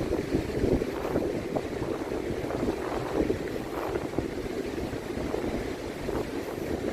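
Wind buffeting the microphone on an open beach: a steady, ragged rushing noise.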